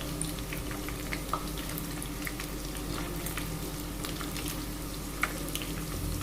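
Food frying in hot oil: a steady sizzle with many small crackles and pops scattered throughout.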